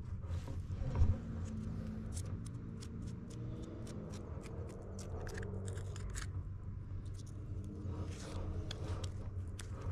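Dry bark on a peach tree trunk crackling and scraping as it is picked at by hand: irregular small clicks, with one louder knock about a second in, over a faint steady low hum.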